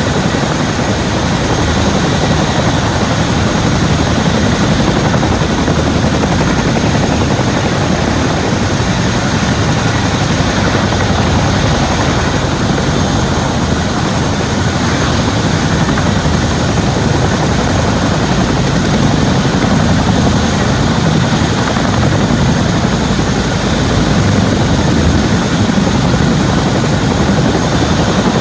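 CH-47 Chinook twin-turbine, tandem-rotor helicopters running on the ground, their rotors turning. The rotor and engine noise is loud and steady, with a thin high whine above it.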